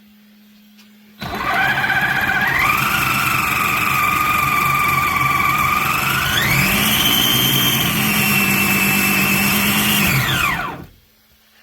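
Freshly repaired RC car's motor and drivetrain running up, a whine that rises in pitch a second or so in, steps higher again around six seconds, then winds down and stops near the end. It is the test run after the repair, checking that all four wheels turn.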